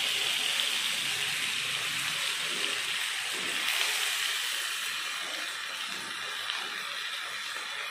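Vegetables sizzling in hot oil in a pan as cubed raw potatoes are added to sautéed onions and tomatoes: a steady hiss that slowly dies down.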